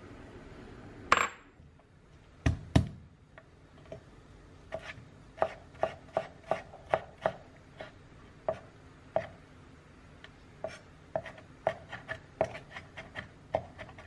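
Knife chopping on a cutting board in irregular strokes, about two a second. It is preceded by a sharp knock with a brief ring about a second in and, a second or so later, two heavier knocks, which are the loudest sounds.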